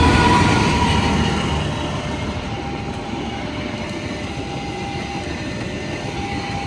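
A CC 206 diesel-electric locomotive hauling a passenger train passes close by. The engine's heavy rumble is loudest at first and eases after about two seconds, leaving the steady rolling noise of the passenger coaches' wheels on the rails.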